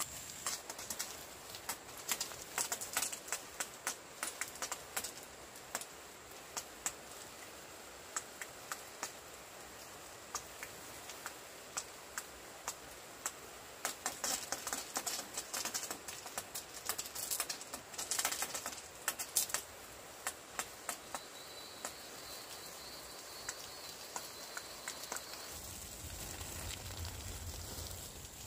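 Water from a garden hose sprayed over vegetable beds, drops pattering irregularly on leaves and soil, thickest around the middle. A low rumble comes in near the end.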